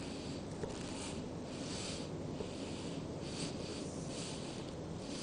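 Soft, repeated scraping of a broad knife blade over kleicha dough and the board beneath it, several light strokes coming and going over a steady low hiss.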